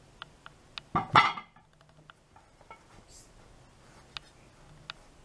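A plate set down onto a stacked place setting: one short, loud clatter about a second in, followed by a few faint clicks.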